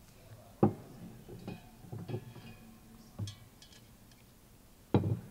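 Insulated water bottles being set down on a wooden podium near the microphone: two sharp knocks, one about half a second in and one near the end, with small clinks and rattles between.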